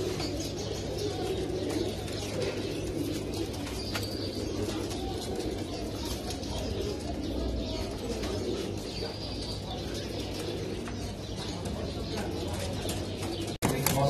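A flock of domestic pigeons cooing steadily together, with now and then a flap of wings and a few short high chirps from small birds.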